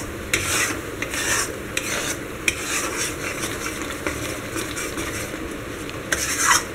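Flat metal spatula stirring thick, cooking besan-and-ghee mohanthal batter in a metal kadhai, scraping across the pan in repeated strokes about twice a second, with the batter sizzling. The batter is at the thickened stage where it no longer sticks to the kadhai.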